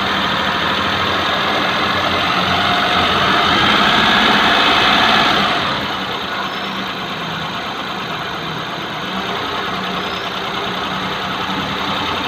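Maruti Suzuki 800's three-cylinder petrol engine idling, lightly revved for a few seconds and then settling back to idle. With the AC compressor belt off, the hum that a loose AC compressor bearing makes at light throttle is absent.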